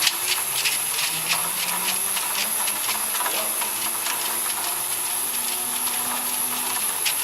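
Vial tray washing machine running: a steady hiss with a high steady whine, and many irregular clicks throughout.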